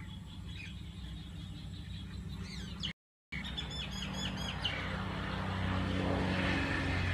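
Birds chirping in quick series over a steady low hum, with the sound cutting out completely for a moment about three seconds in.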